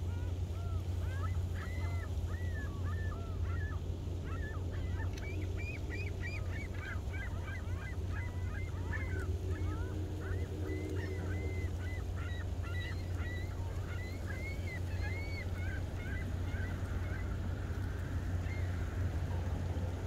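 A large flock of waterbirds on the lake ice calling over one another in short, arched cries. The calls thin out near the end, over a steady low rumble.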